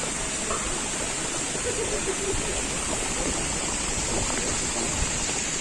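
Steady rushing noise like flowing water, with a faint voice briefly about two seconds in.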